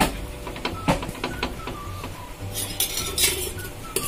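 Fingers patting thick rice-and-leaf batter flat on a cast-iron tawa: sharp taps and clinks, over a steady low hum. Later come stretches of hissing, wet scraping as the fingers go back into a steel bowl of batter.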